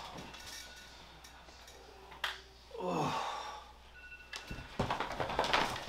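A person's voice sighing with falling pitch about three seconds in, after a sharp click a little over two seconds in. A burst of dense noise follows near the end.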